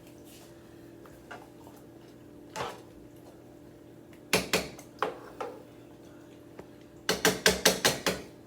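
A spoon knocking and scraping against a cooking pot while the food is stirred, ending in a quick run of about eight taps, over a steady low hum.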